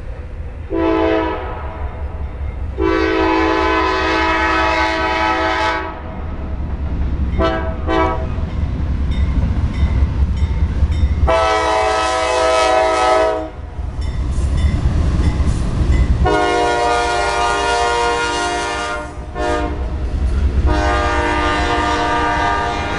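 Diesel freight train horn sounding a series of blasts, some long and some short, each with several steady tones sounding together. Under the horn, the passing locomotives and freight cars keep up a steady low rumble with rail clatter.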